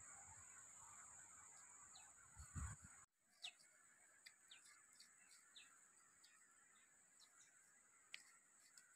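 Quiet outdoor ambience: a steady high-pitched whine with a few short bird chirps scattered through it. There are a couple of soft low thuds in the first few seconds.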